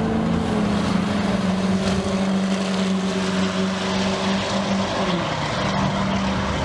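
Two diesel pickup trucks racing down a drag strip at full throttle: a steady engine drone whose pitch drops a little about five seconds in.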